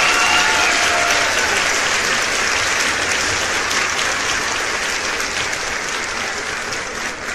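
Audience applause, a dense steady clapping that slowly dies away at the end of a performance.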